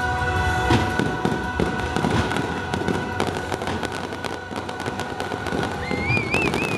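Fireworks finale: a dense barrage of crackling and rapid popping, with steady music tones faintly underneath. Near the end a wavering high whistle rises over the crackle, and then the noise drops off sharply.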